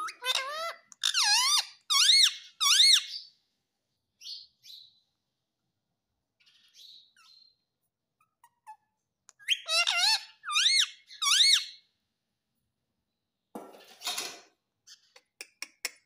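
Indian ringneck parakeet giving short, high squeaky calls, each rising and falling in pitch, in a run of about four at the start and another run about ten seconds in. A brief harsh noisy sound comes about fourteen seconds in, followed by a few faint clicks.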